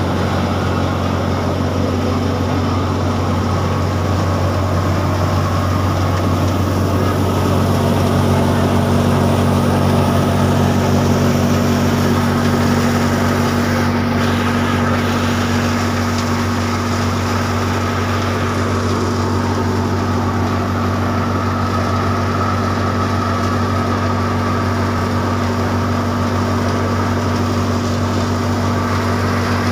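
New Holland Fiat 480 tractor's diesel engine running steadily under load, driving a wheat thresher, with the thresher's drum and fan whirring as it threshes. It is one unbroken mechanical drone with a steady pitch.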